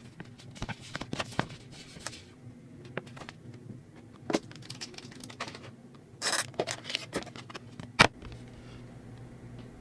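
Pokémon booster pack being handled and opened: scattered crinkles of the foil wrapper and light clicks of cards. There is a short burst of crinkling about six seconds in and a sharp click about eight seconds in.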